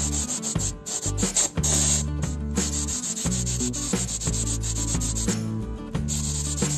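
Sanding on the parts of a vintage toy crane being restored, over a steady low hum, chopped into short clips that start and stop abruptly.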